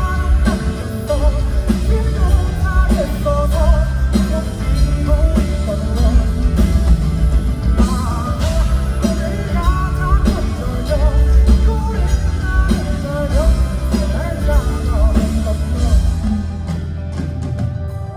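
A live rock band song with a male singer: a sung melody over drums, bass and guitar. The band's sound thins out over the last couple of seconds as the song winds down.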